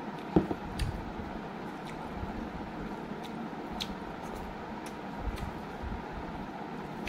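Hand-eating sounds: fingers mixing rice and fried pork on a metal plate, with soft chewing and small clicks over a steady background hiss. A dull knock about half a second in is a glass of water being set down on the table.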